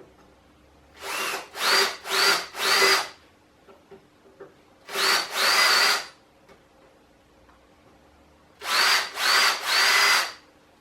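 Power drill with a larger bit countersinking pre-drilled screw holes in wood, run in short trigger pulls: three groups of bursts, each whine rising as the motor spins up.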